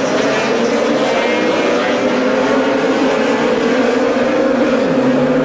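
A pack of two-stroke racing motorcycles accelerating hard together, many engine notes overlapping and rising in pitch as they pull away.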